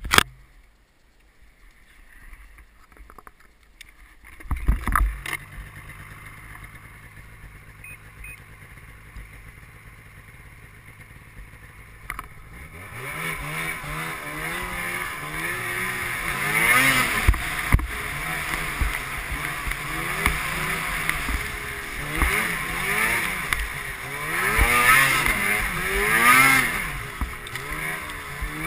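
Ski-Doo snowmobile engine: a thump about four seconds in, then a steady idle, then from about halfway through it revs up and down over and over as the sled rides along the trail.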